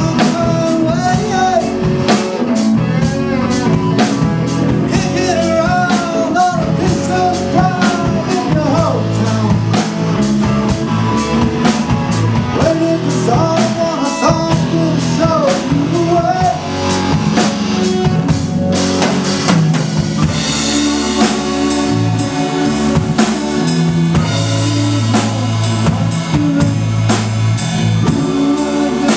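A live rock band playing: a drum kit keeps a steady beat under guitar and keyboards while a man sings. About two-thirds of the way through, the singing drops out and the cymbals ring louder.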